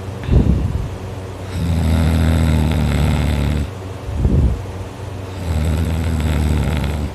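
A teenager snoring loudly in deep sleep: two long, steady, low buzzing snores of about two seconds each, each preceded by a short breath sound.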